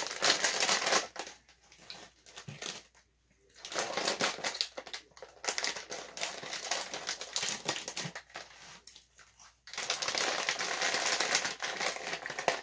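Plastic potato chip bag being pulled open and handled, crinkling and crackling in several bouts with short pauses, the longest near the end.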